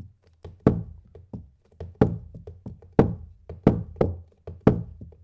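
Homemade drum of adhesive tape stretched over a wood-laminate hoop, struck in a steady rhythm of about three hits a second, with a louder accent roughly once a second. Each hit gives a short low boom, meant to imitate a surdo bass drum.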